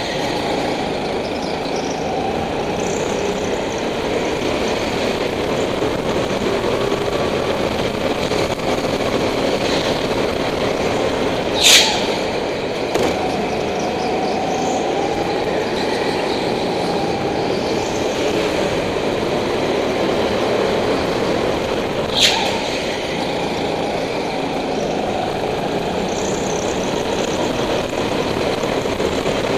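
Go-kart motor running hard, heard from the driver's seat, its pitch rising and falling as the kart goes through the corners. A few sharp knocks cut through it, the loudest about twelve seconds in and another about twenty-two seconds in.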